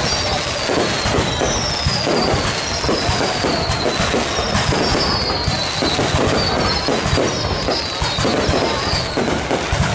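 Fireworks display: a dense, continuous rattle of bursts and crackling, with high whistles falling in pitch about once a second.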